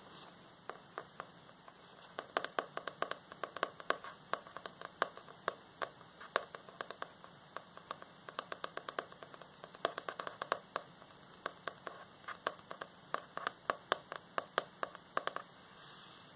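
Long fingernails tapping on the cover of a spiral-bound notebook: quick, irregular runs of sharp clicks with short pauses between them.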